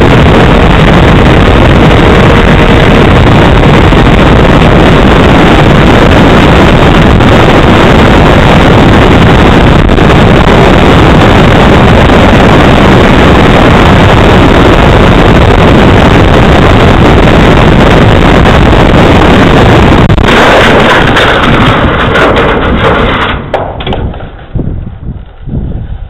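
RC model plane's engine and rushing wind on its onboard camera microphone, loud and distorted throughout the flight. Near the end the noise breaks up and drops away as the plane comes down on a grain bin roof and the engine stops.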